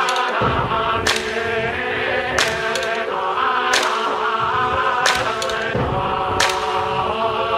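Background music: a song with sung vocals over a beat, with a sharp hit about every second and a quarter; a deep bass line comes in about half a second in.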